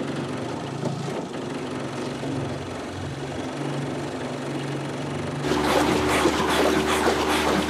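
Small outboard motor on a motorboat running steadily at low speed. About five and a half seconds in the sound jumps to a louder, closer engine drone with water splashing and rushing past in the boat's wake.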